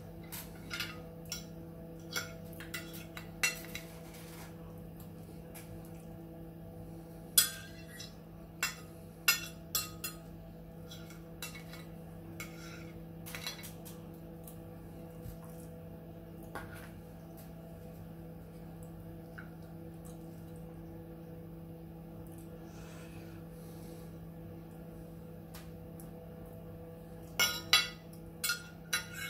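Stainless cutlery clinking and scraping against a ceramic dinner plate in scattered sharp clicks, bunched near the start, about a third of the way in, and near the end, over a steady low background hum.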